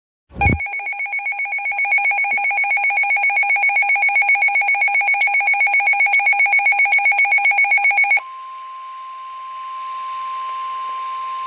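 Weather alert radio going off: a brief low thump, then a loud, rapidly pulsing electronic beep for about eight seconds. It then switches to the NOAA Weather Radio broadcast, where the steady 1050 Hz warning alarm tone sounds over radio hiss, the signal that a warning is about to be read.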